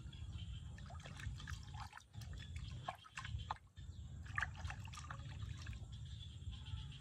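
Water in a plastic basin splashing and dripping in small, irregular plops as hands bathe a baby monkey in it, over a steady low rumble.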